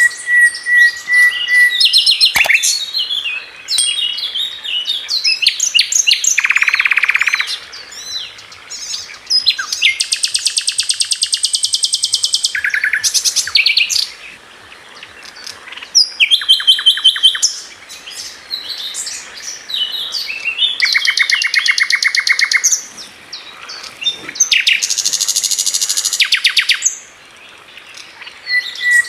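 Songbirds singing, with a stream of high chirps and fast trills in bouts of a few seconds and short pauses between them.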